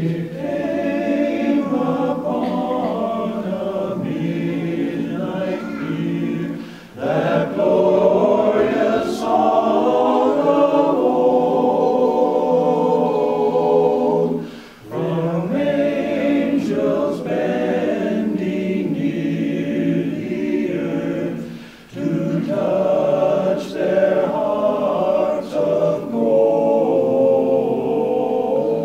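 Men's barbershop chorus singing a cappella in close harmony, held chords in long phrases with short breaks between them.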